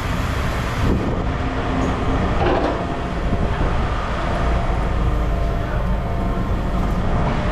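Heavy machinery running with a steady low engine drone and a rough mechanical rumble.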